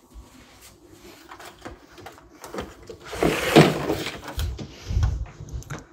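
Phone microphone handling noise: scattered small knocks and rustles, a louder noisy burst about three seconds in, and a low rumble near the end.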